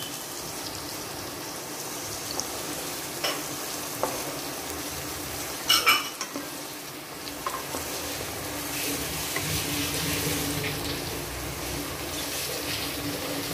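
Chopped onions, tomatoes, green chillies and curry leaves sizzling in hot oil in a pan while a spatula stirs them, with a few light knocks of the spatula on the pan and one louder clatter near the middle.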